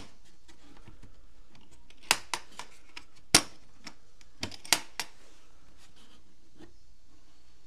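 Sharp clicks and knocks of a rigid plastic tool case's metal latches being snapped open and the case handled: a handful of separate clicks between about two and five seconds in, the loudest about three and a half seconds in.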